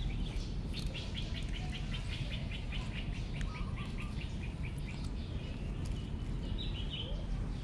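A songbird trilling: a quick run of short high chirps, about seven a second, for roughly three seconds starting about a second in, and a short call near the end. A steady low rumble runs underneath.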